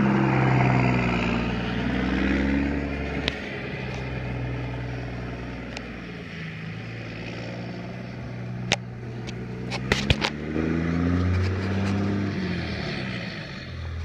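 A 1999 Dodge Ram 3500 dually's 24-valve Cummins 5.9-litre inline-six turbodiesel driving off and across a field. The engine note rises and falls in pitch as it pulls away, fades with distance, then grows louder again near the end. A few sharp clicks are heard along the way.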